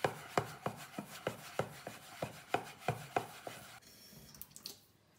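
A spoon stirring stiff, shaggy bread dough in a stainless steel bowl: quick, regular scraping strokes, about three a second, stopping about three and a half seconds in. This is the first mix of a no-knead dough, working the last dry flour into the dough.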